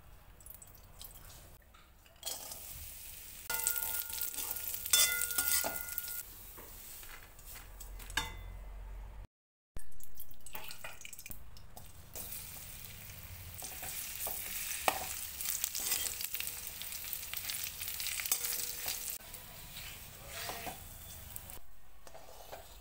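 Dried fruit frying in ghee in a metal kadhai, sizzling as a spatula stirs and scrapes it against the pan. There is a brief silent break about nine seconds in.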